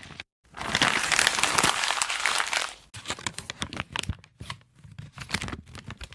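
A crumpling, crinkling sound effect: about two and a half seconds of dense crackling, then scattered sharp crackles and clicks.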